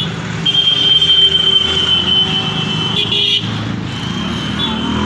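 A motor vehicle engine running close by, a steady rumble with a steady high-pitched tone over it that breaks off briefly about three seconds in.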